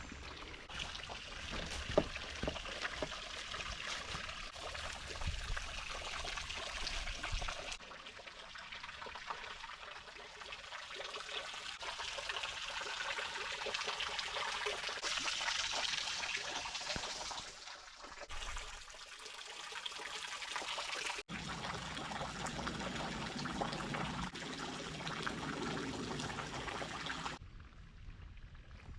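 Water trickling and splashing over rock at a waterfall with very little flow, a steady hiss-like rush that changes abruptly about two-thirds of the way through.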